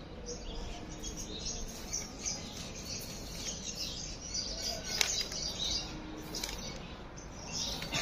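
Small birds chirping and twittering over a low steady background rumble, with one sharp click about five seconds in.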